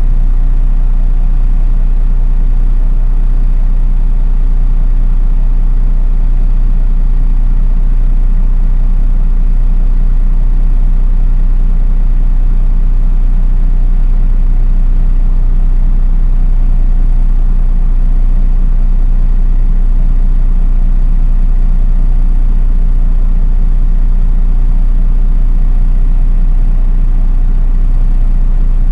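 Engine of a MAN NÜ 313 city bus running at a steady, unchanging pitch, with a strong low hum, heard from inside the bus.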